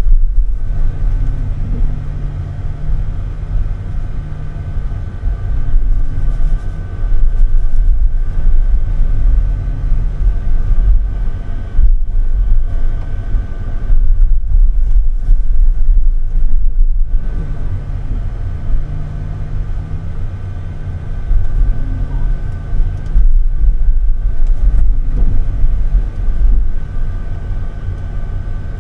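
Timber truck's engine running under load from the log-loading crane's hydraulics, heard from inside the crane cab. It rises and falls in pitch and loudness every few seconds as the crane works, with a steady high whine over the low rumble.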